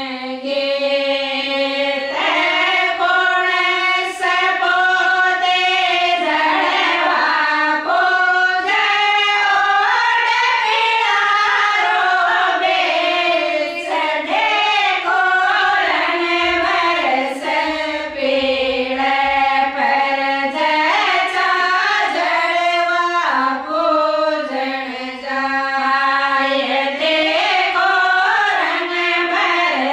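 Women's voices singing a Rajasthani folk song together, a continuous melodic line held through long, wavering notes with no drums.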